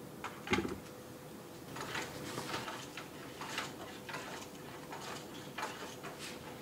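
LEGO Technic strandbeest passive walker clattering down a sloped wooden plank under its own weight: a knock about half a second in, then a run of light plastic clicks and taps, roughly two a second, as its feet strike the board and the linkages rattle.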